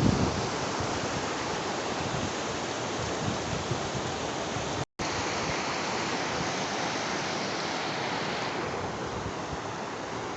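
Steady rush of flowing river water, cutting out for a split second about halfway through and getting slightly duller near the end.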